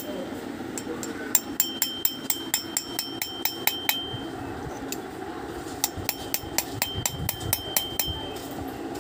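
Small hammer tapping a steel punch against a brass idol to chase in fine detail: light, quick taps at about four a second, in two runs with a short pause between, and a faint high metallic ring lingering through each run.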